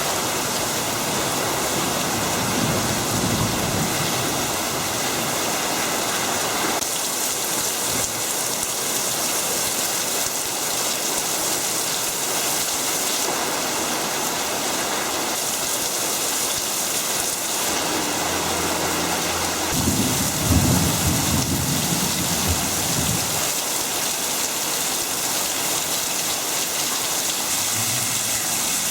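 Steady rain falling, with a low rumble about three seconds in and a louder one about twenty seconds in.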